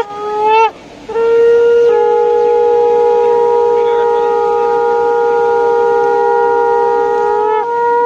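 Electric locomotive's air horn sounding long, steady two-tone blasts. A short blast ends just after the start, a long one begins about a second in and sags in pitch as it cuts off near the end, and the next starts right after.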